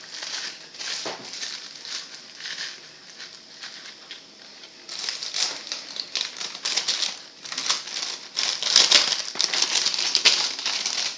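Irregular clicking, clattering and rustling of small objects being handled and put away, which grows busier and louder about halfway through.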